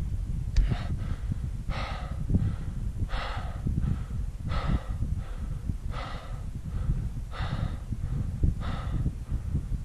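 A climber breathing hard and fast at about 6000 m altitude after a strenuous climb with a heavy pack: loud, rasping out-breaths about every second and a half, with quieter in-breaths between, over a steady low rumble.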